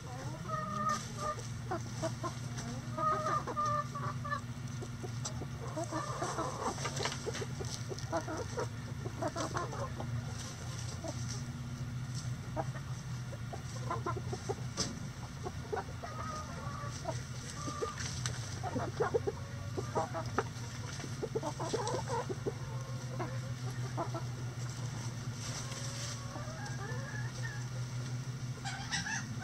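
A mixed flock of backyard hens clucking on and off as they forage, with short calls from several birds at once. A steady low hum runs underneath.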